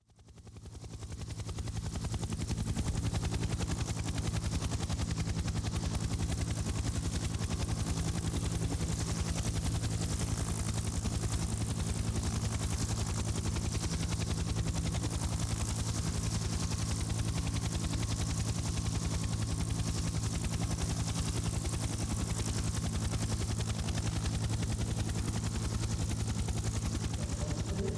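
Steady mechanical running with a low hum and a fast, even pulse, fading in over the first two seconds.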